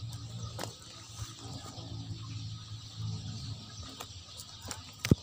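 Outdoor insect chirring, steady and high, over a low hum, with a few light clicks of handling and one sharp click near the end.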